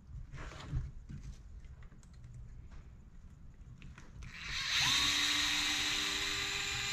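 Faint clicks of small parts being handled. About four and a half seconds in, a DeWalt cordless electric screwdriver spins up and runs steadily with a high whine, backing a small screw out of an RC crawler's axle.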